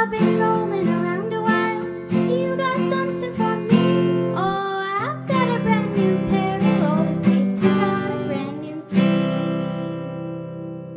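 Acoustic guitar strummed, with a voice singing along, closing a song; a final chord is struck about nine seconds in and rings out, fading.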